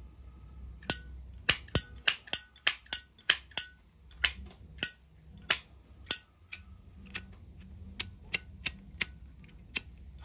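Zippo lighter lids being flicked open and snapped shut: a quick run of sharp metallic clicks with a brief ring, then slower, spaced clicks.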